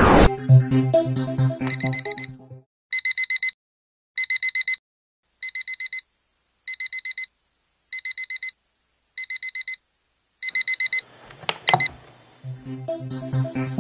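Electronic alarm clock beeping in short bursts of rapid, high beeps, seven bursts a little over a second apart. It is then stopped with a click as a hand presses the button on top. Background music plays before the beeping and starts again near the end.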